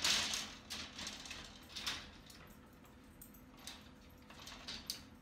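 A cat's claws scrabbling on the wire mesh and wooden frame of a pet gate as it climbs, a string of irregular scratchy rattles, the loudest right at the start.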